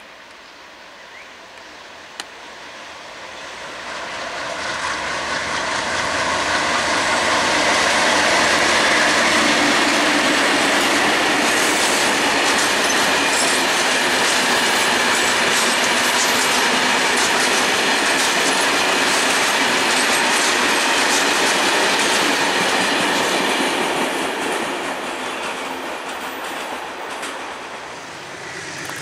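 Freight train of tank wagons behind a diesel locomotive rolling past close by, its wheels running over the rails. It grows louder over the first few seconds, runs loud and steady for about fifteen seconds, then fades near the end.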